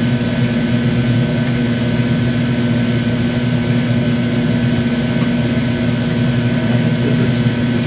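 Steady machine drone with a low electrical hum, running unchanged throughout.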